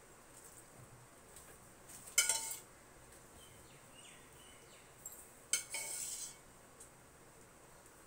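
Steel spoon clinking and scraping against a metal pan and plate while scooping and pouring tempering water: a sharp clink about two seconds in, then a longer ringing scrape about five and a half seconds in.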